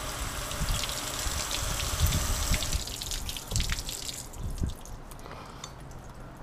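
Garden hose spray nozzle spraying water onto a gas grill, a steady hiss with splashing that stops about four seconds in, leaving water dripping and splattering. A few low thumps come through in the middle.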